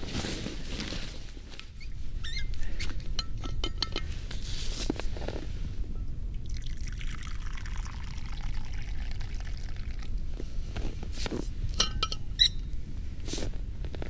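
A drink poured from a steel thermos flask into its cup, a hissing stream lasting a few seconds in the middle, with sharp metal clicks and clinks of the flask's cap and cup being handled before and after.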